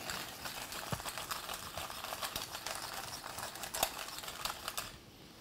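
Hand pepper mill grinding black peppercorns: a rapid, dry crackle of fine clicks that stops about five seconds in.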